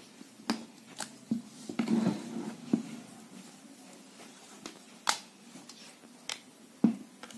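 Irregular small clicks and light knocks as a screwdriver works at the plastic switch inside an angle grinder's rear handle housing to unlatch it, and the grinder body is handled. The sharpest clicks come about five seconds in and near the end.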